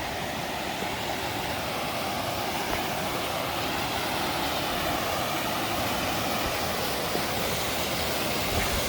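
Waterfall: a steady rush of falling water, growing slightly louder over the first few seconds.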